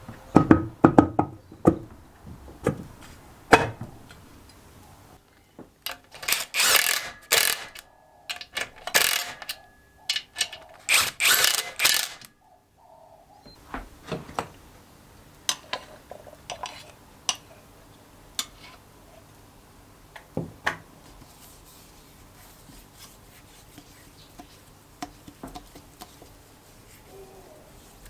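Hand tools and metal engine parts being handled during assembly: scattered clinks, taps and knocks, with a run of louder, longer noisy strokes about six to twelve seconds in.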